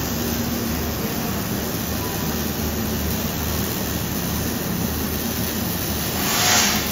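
Steady hissing roar of exhaust work under a lifted pickup, with an arc torch lit at the exhaust pipe. The hiss swells briefly near the end.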